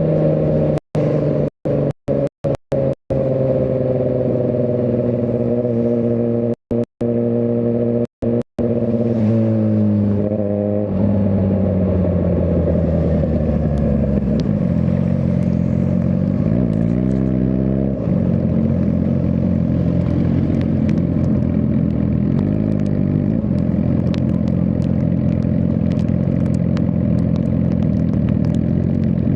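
Suzuki GSX-R1000R inline-four engine falling in pitch as the bike slows, then running at low revs, with one brief rise and fall in revs near the middle. The audio cuts out completely several times in the first few seconds.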